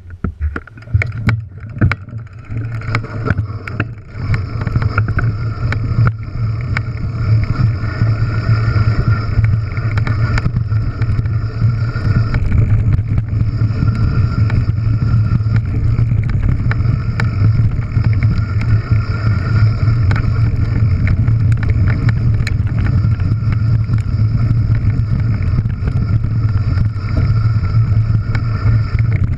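Enduro mountain bike descending a rough gravel track: heavy wind rumble on the action camera's microphone and tyre noise, steady and loud. Over the first few seconds the bike clatters and knocks over rough ground.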